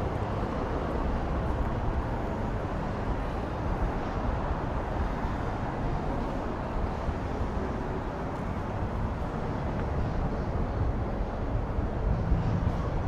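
Busy city-street ambience: a steady wash of passing traffic noise.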